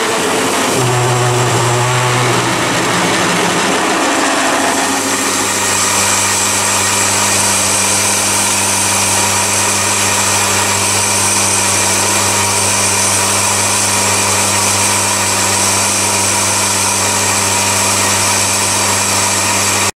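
Chinese mini lathe running while a large HSS twist drill cuts into a spinning metal billet, a steady motor hum and whine under a hiss of cutting noise. The cutting sound shifts in pitch over the first few seconds, then settles into steady running.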